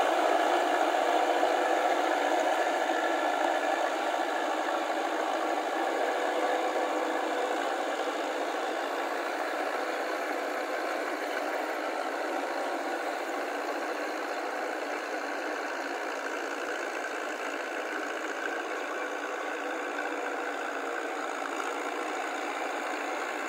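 Tracked paddy tractor with a rotary tiller working a flooded rice field: its engine runs steadily, slowly fading as it moves away.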